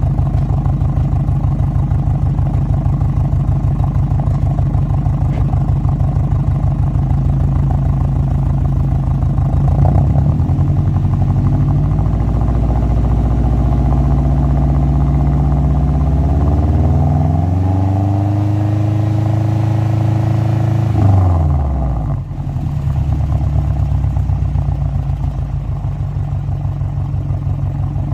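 Subaru Forester SG5's flat-four engine through a Kakimoto Kai Full Mega N1 exhaust with its silencer insert fitted. It idles steadily, is revved slowly up starting about ten seconds in, is held there for a few seconds, then is released and falls quickly back to idle.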